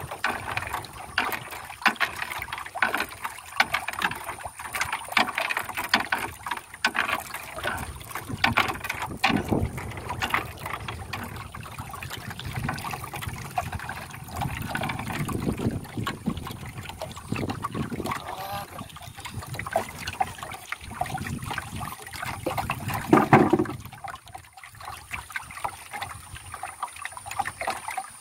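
A metal chain rattling and clinking as it is hauled hand over hand over the side of a wooden canoe, with water dripping and splashing off it. A louder clatter comes about 23 seconds in.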